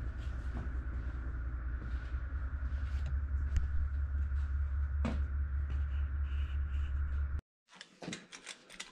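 A steady low machine hum with a faint high whine, which stops abruptly near the end. After it, a hand ratchet wrench clicks in short runs as the bolts on an axle hub cover are run down.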